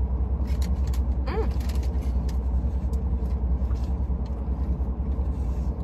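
Steady low rumble inside a Rolls-Royce's cabin, with light crinkles from a paper food wrapper and a short hum from the eater about a second and a half in.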